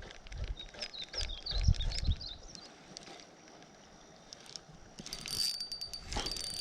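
Spinning fishing reel being cranked: a fast run of ratcheting clicks with a steady high whine, starting about five seconds in. A few low thumps of handling come earlier.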